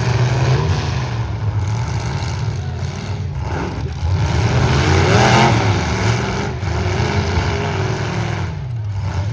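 Stock trucks' engines running and revving in a demolition derby heat, the pitch rising and falling, with the loudest rev climbing to a peak about five seconds in and then dropping away.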